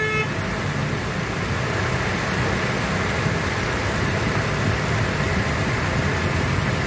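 Nissan Sentra's engine idling steadily with the air conditioning switched on. The mechanic suspects the ignition coils of giving uneven output, the cause of its hunting idle and check engine light.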